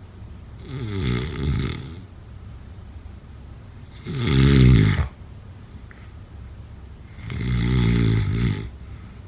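A person snoring: three snores about three seconds apart, each a rough, pitched rattle lasting about a second, the middle one loudest.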